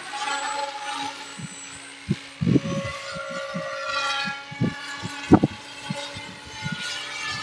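Radio-controlled model helicopter in flight: a steady whine of motor and rotor, its pitch sliding up and down around the middle as it manoeuvres. A few dull low thumps come through, the loudest about five seconds in.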